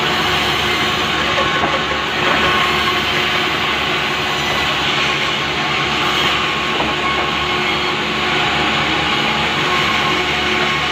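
Powered saw running steadily as it rips lengthwise through a large pulai log.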